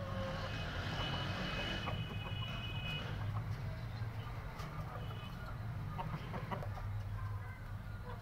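A hen clucking in short, scattered calls while she sits to lay an egg, over a steady low hum. A thin high tone sounds from about a second in and lasts about two seconds.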